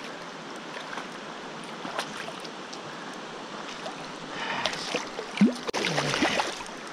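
Steady rush of a flowing river, with a large nigoi (barbel steed) thrashing and splashing at the surface from about four and a half seconds in as it is drawn to the landing net.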